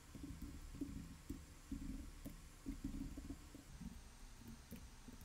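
Faint, muffled keystrokes of typing on a computer keyboard, coming as irregular soft thuds.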